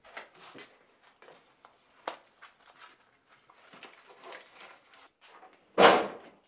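Soft rustles and small clicks of a wallet being handled and money pulled out of it. A single short, loud thump comes near the end.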